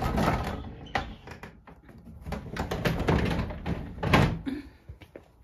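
A door being shut, with rustling and scattered knocks and a louder thump about four seconds in.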